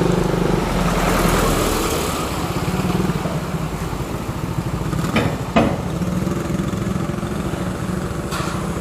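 An engine running steadily, with two short sharp clicks about five seconds in.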